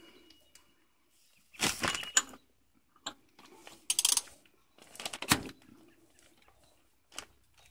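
Metal clinks and rattles of a half-inch drive ratchet, extension and oil filter cartridge socket being handled and fitted onto the filter cap, in four or five short bursts.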